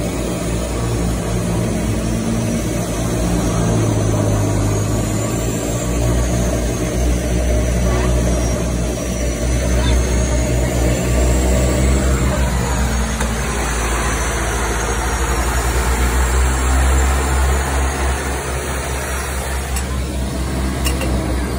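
DHC-6 Twin Otter's turboprop engines and propellers running, heard from inside the cabin: a loud, steady drone with a faint high whine that rises and falls in pitch.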